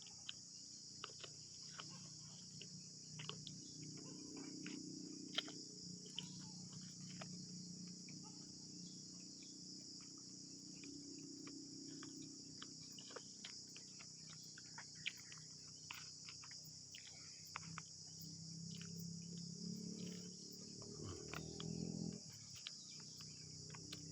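Crickets chirping in a steady, faint chorus, with scattered light clicks and a low hum that grows louder about twenty seconds in.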